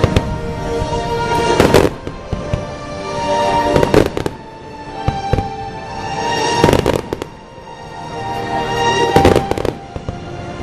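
Aerial fireworks bursting in clusters of sharp bangs and crackles, about every two to three seconds, over music playing throughout.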